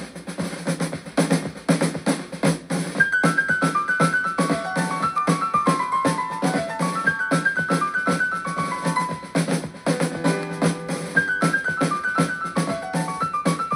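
Music played from a 1980s Sharp demonstration LP on a CoolGeek VS-01 vertical turntable: drums, joined about three seconds in by a keyboard playing quick descending runs of notes over them.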